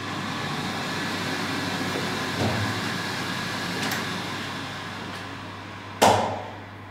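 Running water in a tiled restroom swells and fades, with a small knock about two and a half seconds in. Near the end a door bangs shut hard and rings briefly off the tiles.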